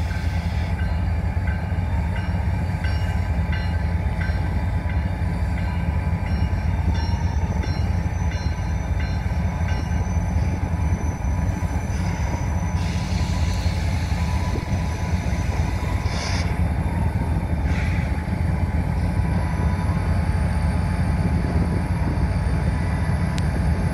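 Two GE diesel locomotives, an ES44AC leading a Tier 4 ET44AC, running with a steady low rumble as they move slowly through a rail yard.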